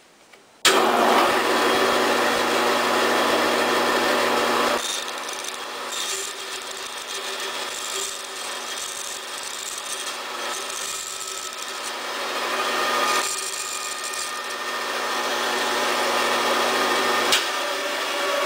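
Bandsaw starting up about half a second in and running with a steady motor hum while a carbon-fibre tube is slowly rotated into the blade and cut through. The sound thins and drops in the middle. Near the end there is a click, the hum stops, and the blade runs on.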